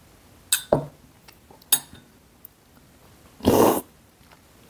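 A metal spoon clinks against a glass cup of coffee a few times, then, about three and a half seconds in, one loud short slurp as the coffee is sucked off the spoon to taste it.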